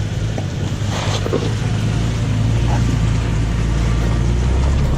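Pickup truck driving on a rough dirt trail: a steady low engine and drivetrain rumble that grows a little louder toward the end, with a few light knocks.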